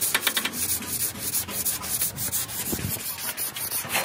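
A putty spreader scraping polyester body filler across a truck cab's sheet-metal panel in repeated quick strokes.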